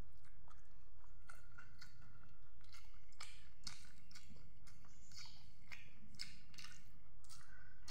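A person chewing food close to the microphone, with irregular crisp crunches several times a second.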